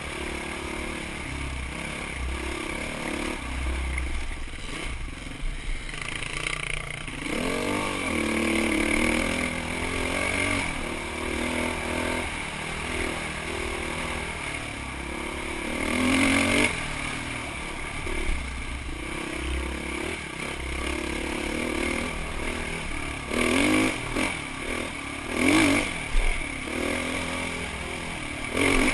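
Honda CRF450X dirt bike's four-stroke single-cylinder engine riding trail, its revs rising and falling over and over as the throttle is worked, with several louder bursts of throttle.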